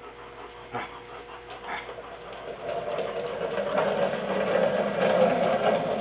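A chocolate Labrador growling in a game of tug as it pulls a man on a wheeled shop stool, the stool's casters rolling over the concrete floor. A couple of sharp clicks come early, and the rough, grinding sound swells from about two and a half seconds in.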